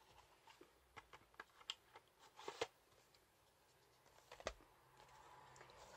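Faint, scattered clicks and taps of plastic DVD cases and packaging being handled and set down on a desk, with a louder knock about four and a half seconds in.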